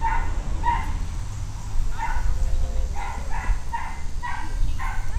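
Dog barking repeatedly, about nine short barks, some in quick pairs, over a low steady rumble.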